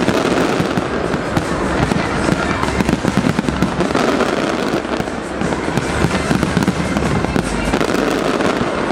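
A large fireworks display with many shells bursting at once: a continuous, dense run of bangs and crackles with no pause.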